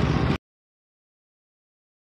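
Car driving noise, a steady rumble of engine and road heard from inside the car, cutting off abruptly under half a second in; the rest is dead silence.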